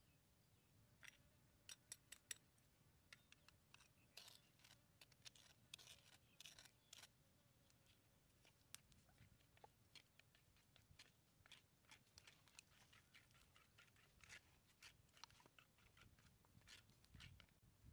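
Metal spoon stirring a sauce in a coconut-shell bowl: a string of faint clicks and scrapes as the spoon knocks and drags against the shell.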